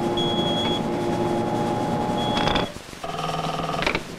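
Steady electrical equipment hum with a high beep tone switching on and off. After a break about two and a half seconds in, a telephone bell rings for about a second near the end.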